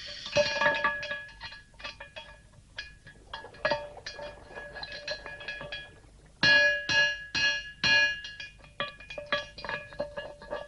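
Ship's bell struck again and again with a hammer as its coral crust is chipped away, each blow ringing on the same bell tones. The blows come irregularly, with a loud run of strikes about six and a half seconds in.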